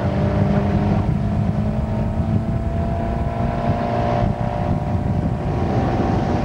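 Motorboat engine running steadily at speed while towing water skiers, with wind buffeting the microphone.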